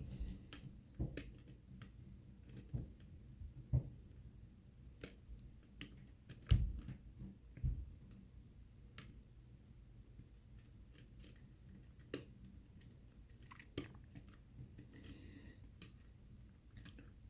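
Irregular, scattered metallic clicks and light scraping of a short hook pick probing the pins inside a six-pin pin-tumbler challenge lock, one click at a time with pauses between.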